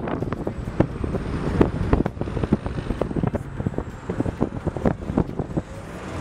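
Low wind and road rumble while riding in a moving car, with many irregular knocks and clicks throughout.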